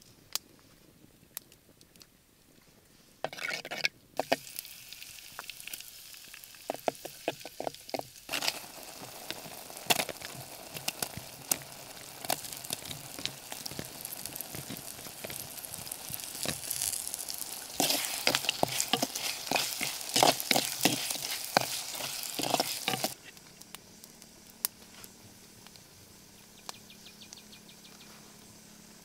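Chunks of meat frying in hot oil in a blackened pot, a dense sizzle full of clicks and pops. It starts suddenly about three seconds in, grows louder for the last several seconds, and cuts off abruptly, leaving only faint ticks.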